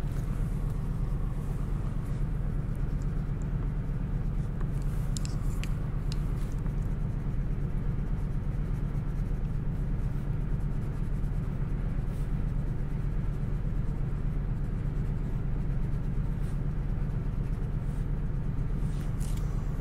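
Coloured pencil scratching on paper in short strokes as small spots are shaded in, over a steady low hum.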